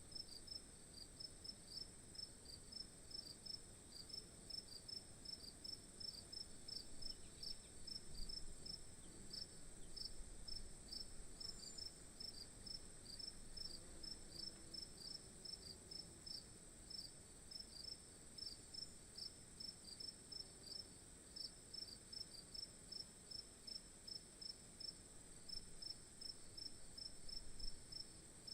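Faint insects chirping in a forest: a fast, even series of short high chirps, about three a second, over a steady high-pitched hiss.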